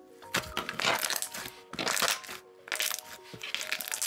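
Thick white wood-glue slime being folded and pressed by hand, giving bursts of crackly pops and squishes, over soft background music with held notes.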